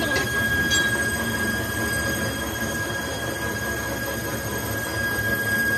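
A steady high-pitched machine whine over a low rumble, with a couple of faint knocks in the first second.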